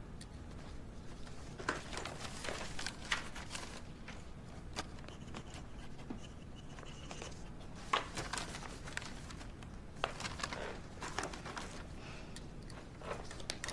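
Sheets of paper rustling and being handled, with scattered light taps and clicks, as a document is leafed through and signed with a pen.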